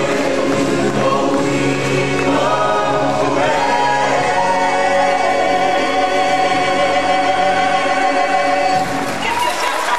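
Live stage-show song: a choir sings over music, with a man singing lead into a microphone. About a third of the way in, the voices settle into one long held chord, which breaks off shortly before the end.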